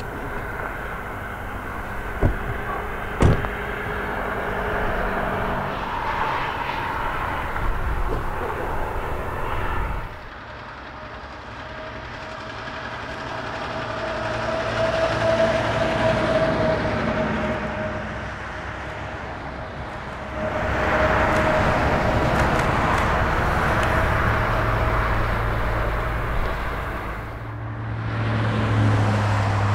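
Iowa Interstate 6988, a Chinese QJ class 2-10-2 steam locomotive, working past with its train rolling on the rails. The sound changes abruptly a third of the way in and twice more near the end as the shots change.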